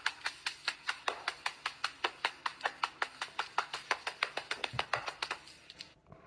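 Rapid, evenly spaced clicking, about six clicks a second, which stops about five and a half seconds in.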